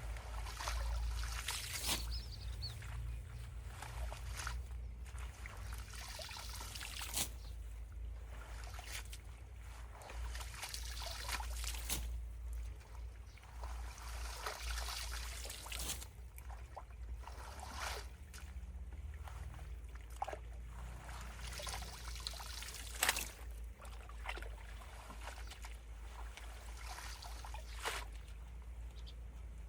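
Water trickling and sloshing at a debris-clogged culvert, with scattered sharp knocks and splashes as debris is pulled away, over a steady low rumble. The sharpest knock comes a little past the middle.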